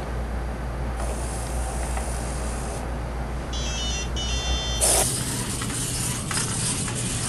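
Pololu 3pi robot's buzzer playing a quick run of short high beeps. After a sudden loud burst about five seconds in, the steady running noise of the robot's small gearmotors and wheels follows as it drives along a line course.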